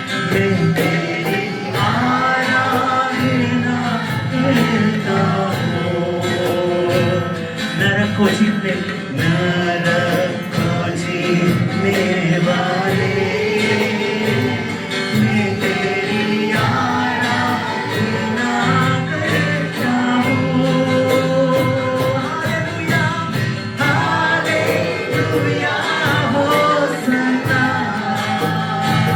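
Live worship band playing a Christian worship song with singing, over a steady beat from drums or percussion.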